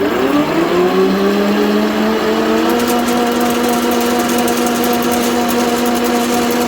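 Leblond Regal 24-inch engine lathe's geared headstock spinning up to 450 RPM: a whine of several tones that rises in pitch over the first second or two, then runs steady and loud. A fast high ticking joins in about three seconds in, with the power feed running.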